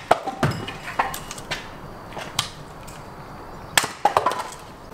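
An axe chopping and splitting firewood on a wooden stump: a series of sharp, irregular chops, the loudest near the end.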